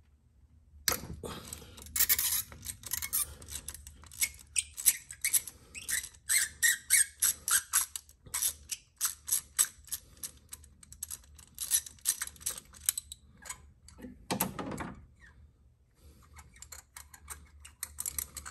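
Hand ratchet clicking in quick runs as it loosens and backs out a spark plug through a 14 mm spark plug socket on a long extension. One louder, longer grating sound comes about three-quarters of the way in, and the clicks are fainter near the end.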